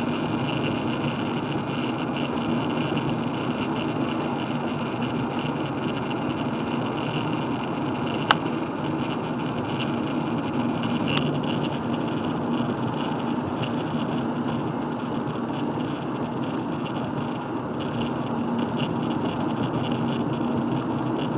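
Steady running noise of a car driving on a wet road, heard inside the cabin: engine hum under the hiss of tyres on wet pavement, with one sharp click about eight seconds in.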